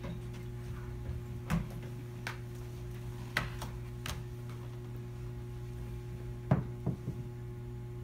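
Scattered knocks and clicks, about half a dozen, over a steady electrical hum; the loudest knock comes about six and a half seconds in.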